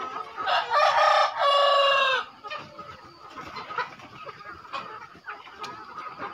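A rooster crows once, about half a second in, a loud two-part call that falls away at the end, with the rest of the flock of Gà hồ chickens clucking faintly around it.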